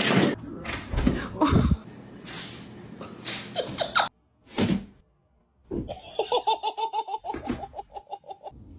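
A person laughing: scattered bursts of laughter at first, then a fast run of short, even 'ha-ha-ha' laughs in the last few seconds.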